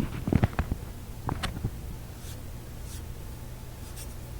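Hands handling an old tube radio chassis: a quick cluster of clicks and knocks in the first second and a couple more about a second and a half in, over a steady low hum.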